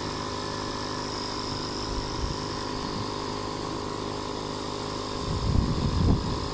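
Air compressor running with a steady hum, feeding the pneumatic framing nailer. A few dull low knocks come near the end.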